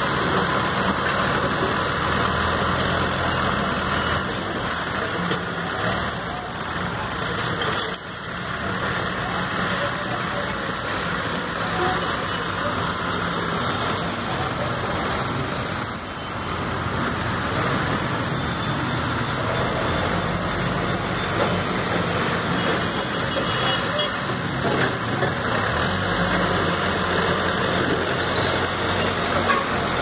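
Escorts backhoe loader's diesel engine running steadily at work clearing brick rubble, mixed with passing road traffic.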